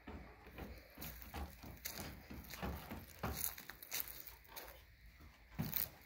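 Light, irregular footsteps and scuffs on a concrete patio and a low wooden bench, with a louder scuff near the end as a child pushes off the bench to jump.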